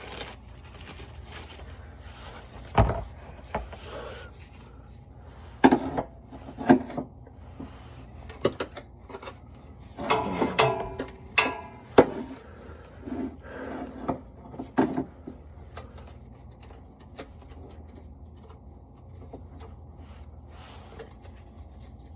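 Handling noises from fitting a 4L60E transmission servo and its snap ring: scattered clicks, scrapes and knocks of metal parts and tools, with a sharp knock about three seconds in and a busier run of scraping around ten to twelve seconds.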